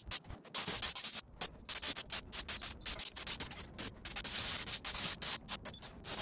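Compressed-air gravity-feed spray gun hissing in a quick series of short bursts as the trigger is pulled and released, spraying paint, with a longer spray about four seconds in.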